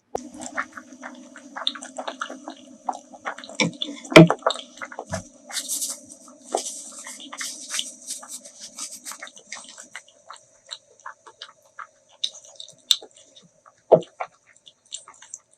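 Close-miked eating sounds: wet chewing and irregular crunchy bites and mouth clicks, with one loud crack about four seconds in.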